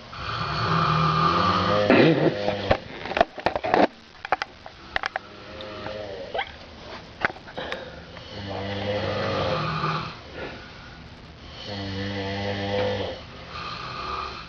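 Two people snoring: long, droning snores a few seconds apart. A run of short, sharp snorts and clicks comes about two to four seconds in.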